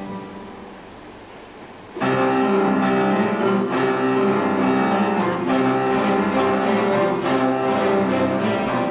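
Orchestra of bowed strings with piano playing: a held chord dies away, then about two seconds in the full ensemble comes in loudly with sustained, shifting chords and a few sharp accented strokes.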